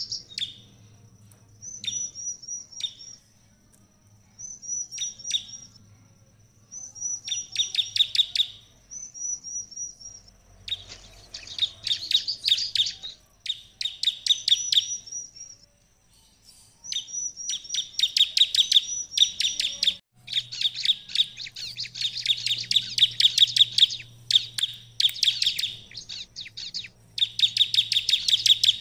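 A bar-winged prinia (ciblek) singing in full voice, the vigorous 'gacor' song used as a lure call for other prinias. It gives fast runs of sharp, high chirps in phrases broken by short pauses, with a thin high whistle between them, and the song becomes almost unbroken in the second half.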